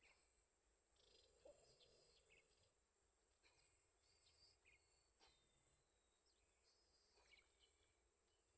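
Near silence: a faint steady high-pitched whine with scattered faint short chirps and clicks.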